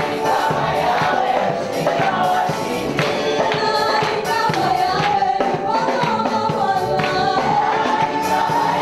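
Congregation singing a gospel hymn together, with hand-clapping and percussion keeping a steady beat.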